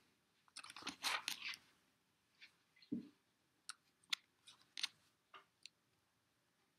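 Faint scattered clicks and short rustles, with a soft low thump about three seconds in.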